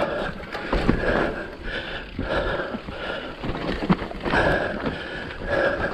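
Mountain bike riding down a rough trail: tyres and bike rattling over rocks and roots, with a buzzing that comes and goes several times.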